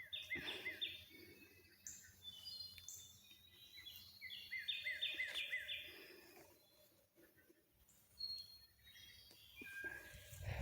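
Songbirds singing faintly: a rapid run of repeated chirping notes at the start and again about four and a half seconds in, with scattered single calls between.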